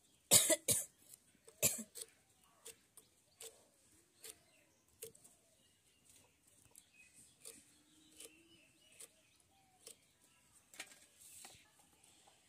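Fresh green beans being cut and snapped by hand with a curved kitchen blade: a run of small snaps and clicks about one every half second to a second, with two louder sharp bursts about half a second and a second and a half in.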